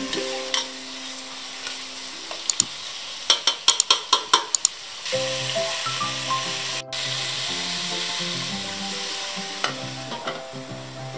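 Chicken wings, ginger and lemongrass sizzling in a nonstick pan while a plastic spatula stirs them, with a quick run of scraping taps against the pan about three to four and a half seconds in. Background music plays throughout, more prominent in the second half.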